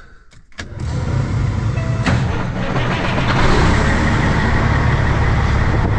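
A few short clicks, then about a second in a vehicle engine starts to be heard running steadily, with a low hum under a broad rush of noise.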